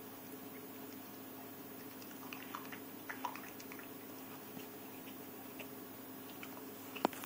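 A dog mouthing a pepperoncini pepper: faint wet smacking and chewing sounds, clustered about two to three seconds in, over a steady low hum. Two sharp clicks near the end.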